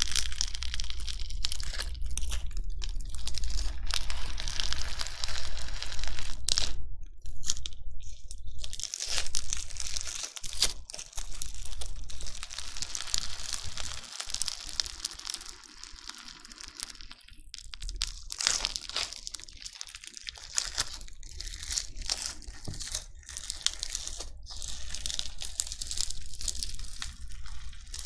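Crunchy bingsu slime being handled, its beads giving a dense crackling crunch close to the microphone. The crunching is fuller in the first half, with a couple of short pauses, and turns softer and sparser about halfway through.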